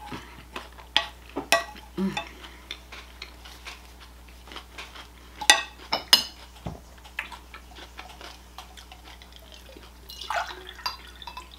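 Close-miked eating of a forkful of salad: a wooden spoon taps and scrapes on the ceramic plate as the bite is taken, then crunchy chewing with wet mouth clicks and smacks. The sharpest clicks come about halfway through.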